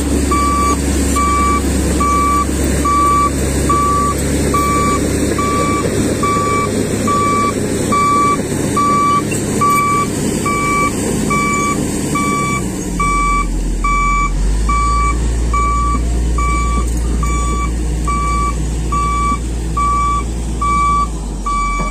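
Reversing alarm beeping steadily, a little more than once a second, over the low running of a Komatsu D155A bulldozer's diesel engine, whose note shifts about halfway through.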